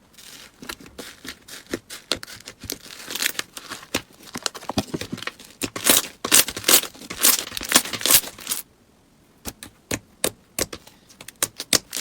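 Slime being squeezed and worked by hand, giving dense runs of sharp crackling pops and clicks. It goes briefly quiet a little before the end, then a few scattered pops follow.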